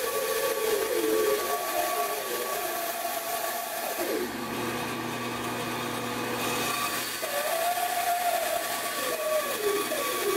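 Bandsaw running and cutting plywood: a steady machine whir with a wavering pitch as the piece is fed into the blade. The cutting sound lets up in the middle, then picks up again.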